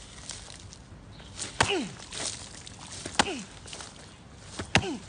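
Three sharp impacts about a second and a half apart: a bare-legged Muay Thai kick striking a coconut strapped to a palm trunk. Each impact is followed by a short falling-pitch sound.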